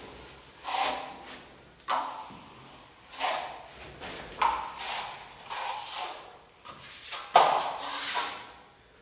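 Steel plastering trowel scraping across plasterboard, smoothing ready-mixed joint compound on the wall: about eight strokes, roughly one a second, each starting sharply and fading out.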